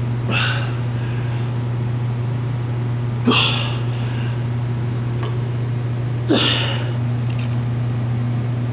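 A weightlifter's sharp, forceful exhalations, one with each cable crossover rep, three of them about three seconds apart, over a steady low hum.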